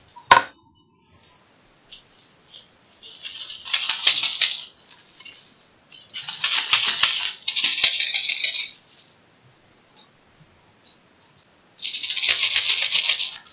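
A single sharp snip of scissors cutting yarn, then a crocheted baby rattle shaken in three bouts, its rattle insert giving a dense, rapid rattle.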